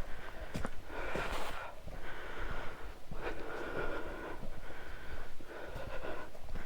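Heavy breathing of a hiker out of breath from climbing a steep mountain trail, with breaths in and out following one another about every second.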